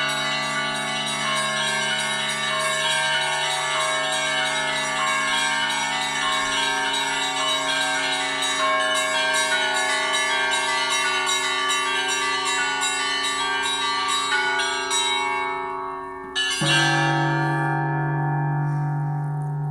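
Russian Orthodox church bells ringing: a dense peal of many small and middle bells over a steady low bell. About three-quarters of the way through the peal dies away, and a single heavy stroke of the large bell follows and rings on with a long low hum.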